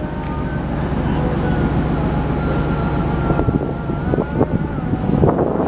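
Steady low rumble of a ship's engines as the ferry berths, with a faint high whine over it and wind buffeting the microphone. A few short knocks come in the second half.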